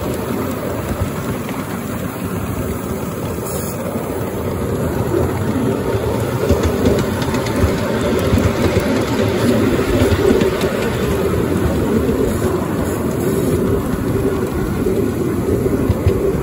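5-inch gauge live steam model of a NSW Z18 class 0-6-0 tank engine running on its track pulling a rake of coaches, giving a steady rumble with no break.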